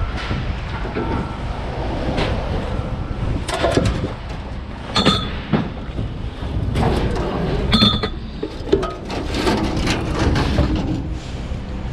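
Pieces of scrap metal clanking and ringing as they are dropped or thrown into a container, several separate clanks, over a steady low machinery rumble.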